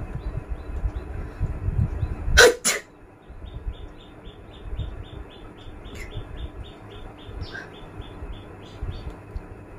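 A person's sneeze, a short explosive double burst about two and a half seconds in and the loudest sound here, after some low rumbling noise. Then a high chirp repeats evenly, about four times a second.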